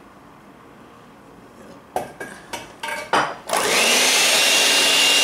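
A few sharp knocks and clatters about two seconds in, then an electric hand mixer starts up and runs steadily, its motor giving a high whine as the beaters mix crepe batter in a stainless steel bowl.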